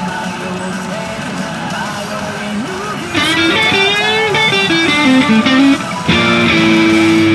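Guitar music from a Sanyo CR Silver Diamond pachinko machine during its ST mode spins. About three seconds in it gets louder as a wavering guitar lead line comes in, and near the end a long held note starts.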